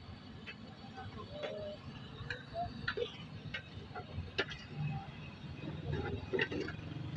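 Irregular light clicks and small clatters from French-fry stall work with metal cookware and cut potatoes, over a low steady rumble.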